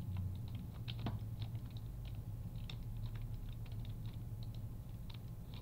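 Computer keyboard being typed on: irregular short key clicks, several a second, over a steady low hum.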